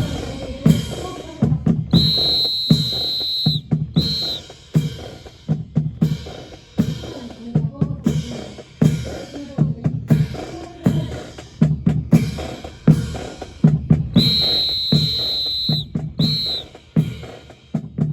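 Marching percussion: snare and bass drums playing a steady, driving rhythm for a drill display. A high whistle sounds twice, each time one long blast followed by a short one, about 2 seconds in and again about 14 seconds in.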